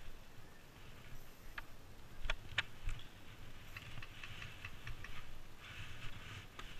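Footsteps and gear movement: a few sharp clicks, then a run of light ticks and a brief crunching near the end.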